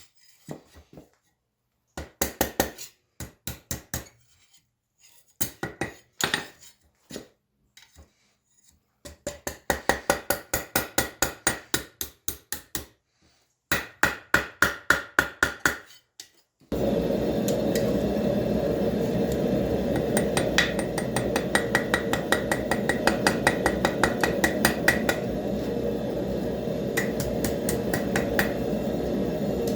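Hand hammer forging a hot railroad spike on an anvil, in runs of quick blows at about four a second with short pauses between runs. About two thirds of the way through, a steady rushing noise starts suddenly, and the hammering goes on over it before thinning to a few strikes near the end.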